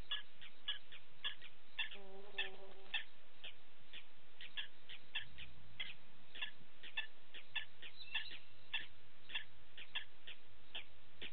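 Steady repeated animal chirping at night, about three short high chirps a second. About two seconds in, a pitched call lasts about a second, and a brief low rumble follows about five seconds in.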